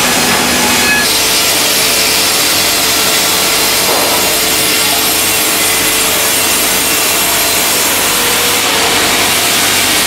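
Serra Bavaria SL 130i horizontal bandmill sawing through a log, a loud steady sawing noise. The sound changes about a second in.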